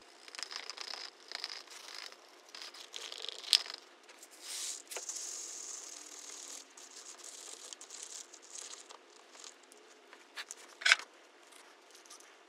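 Crinkling and rustling of a plastic mixing cup and gloved hands as epoxy is stirred and popcorn kernels are added and mixed in, with scattered small clicks. Two sharper clicks stand out, about three and a half seconds in and near the end.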